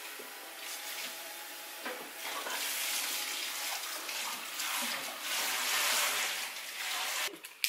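Kitchen sink tap running, water rushing and splashing into the sink, louder from about two seconds in and cutting off near the end.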